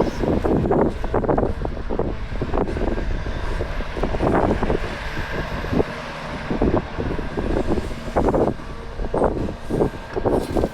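Heavy diesel earthmoving machinery at work, an excavator and dump truck running, with a steady engine note under frequent irregular clatter and surges.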